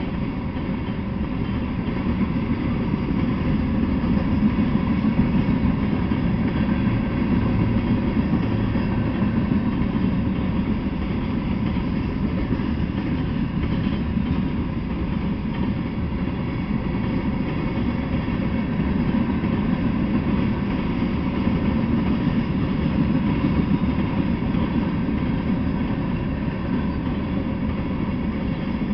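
Freight train of covered hopper cars rolling steadily past: a continuous, unbroken sound of steel wheels running on the rails.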